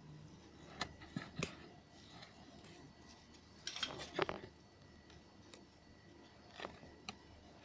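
Metal spoon clicking and scraping against a metal pizza pan as sauce is spread over raw dough: scattered light clicks, with a louder cluster of clinks about four seconds in.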